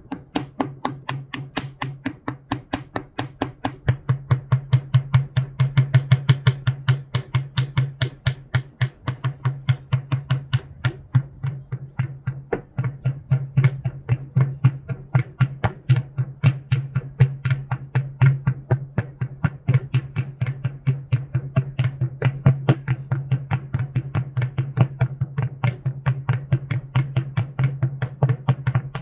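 Alga electronic device making a rapid, even clicking, about four clicks a second, over a steady low hum.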